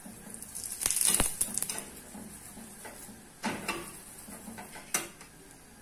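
A spoon spreading oil over a chapati in a flat pan, with rubbing and scraping strokes and a few sharp clicks of the spoon against the pan. The loudest scraping comes about a second in.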